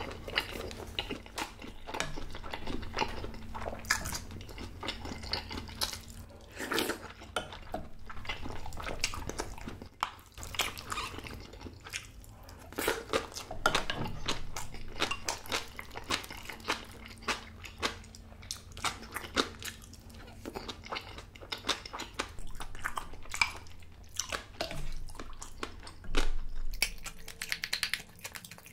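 A person chewing and biting food close to the microphone, mouthfuls of stir-fried spicy pork meal with crunchy bites, in many irregular clicks and smacks. A louder knock comes near the end.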